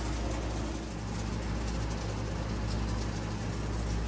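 Steady low mechanical hum with an even drone, like a motor running nearby.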